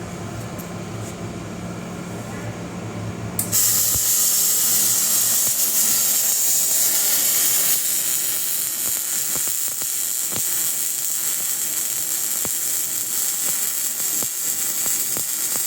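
Single-phase 220 V MIG welder humming; about three and a half seconds in, the arc strikes and a loud steady hiss with scattered crackles carries on as the bead is laid.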